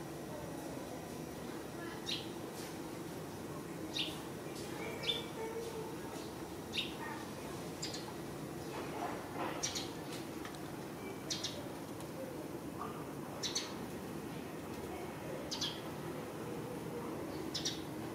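A bird chirping outdoors: short, high chirps repeated every second or two over a steady low hum of background ambience.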